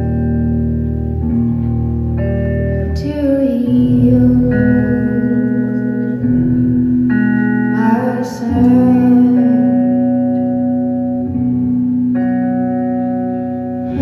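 Live music: sustained keyboard chords that change every second or two, with acoustic guitar.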